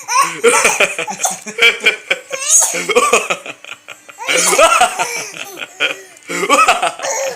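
Three-month-old baby laughing hard in several bouts of breathy squeals with short pauses between them, breaking into small coughs from laughing so much.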